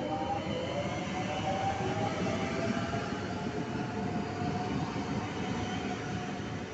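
Double-deck electric multiple unit moving past, its traction motors whining in a pitch that rises slowly as it gathers speed and then levels off, over the steady running noise of wheels on rail.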